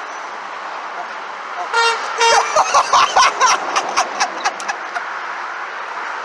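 A passing truck's horn sounds over steady road traffic: two short blasts about two seconds in, then a quick run of short toots, about four or five a second, for roughly two seconds.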